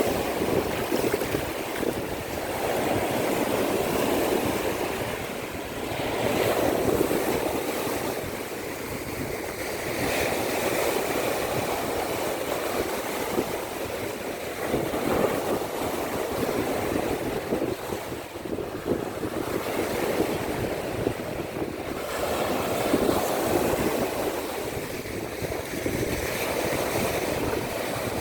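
Baltic Sea waves breaking on the shore, the surf swelling and easing every few seconds, with wind buffeting the microphone.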